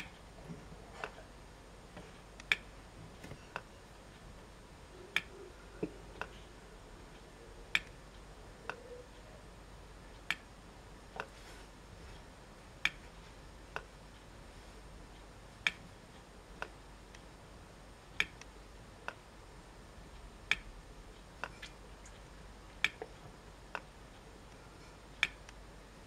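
Homemade solar mini Stirling engine clicking as it runs slowly. A louder sharp click comes about every two and a half seconds, each followed by a fainter click about a second later.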